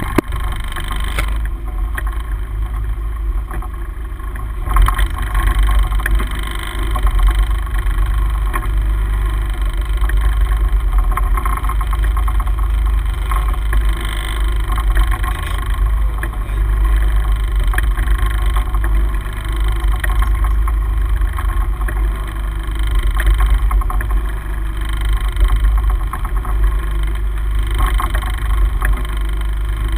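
Steady low rumble and wash of a sport-fishing boat running on the open sea.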